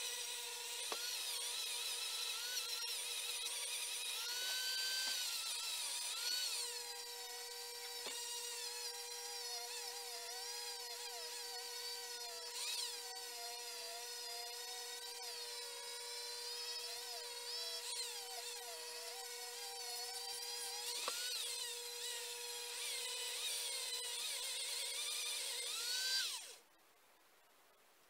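High-speed rotary tool grinding inside a cylinder head's port, porting the head: a steady motor whine, with the grinding pitch wavering as the bit bears on the metal. It cuts off suddenly near the end.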